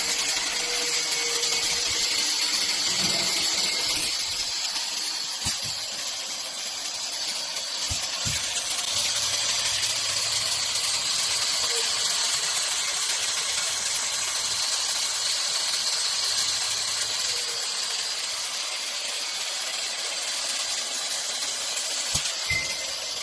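Automatic seam welding machine running on a sensor diaphragm, a steady hiss with a faint hum in the middle and a few short clicks.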